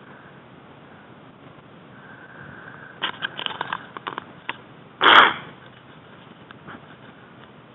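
A few sharp clicks of the Mosin-Nagant rifle being handled, then about five seconds in a single shot from the 7.62×54R bolt-action rifle, one loud crack with a short echoing tail.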